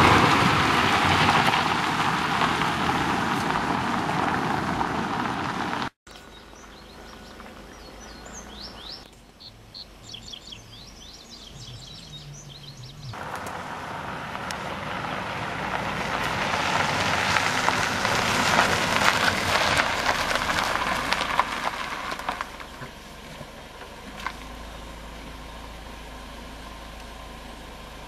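Ford Focus sedan driving off on a gravel road, with tyre and engine noise. After a sudden cut, birds chirp briefly, then the car is heard approaching along the road, growing louder and then easing off as it slows and stops, leaving a low idle.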